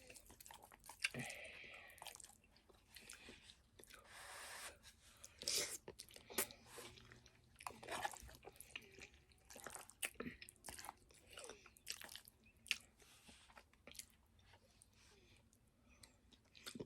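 Close-miked mouth sounds of someone eating spaghetti with meat sauce: soft, wet chewing with irregular smacks and clicks, and a few longer noisy mouthfuls.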